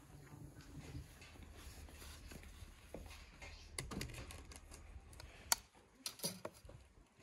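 Faint, steady low background hum with light crackles, then, past the middle, a few sharp clicks and taps as eggs are handled on a china plate.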